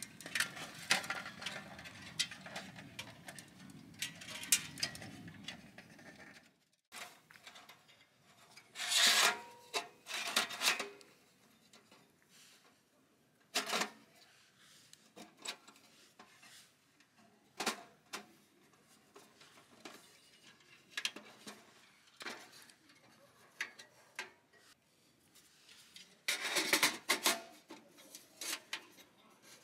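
Irregular knocks, scrapes and rubbing of objects being handled. A low background rumble stops abruptly about six and a half seconds in.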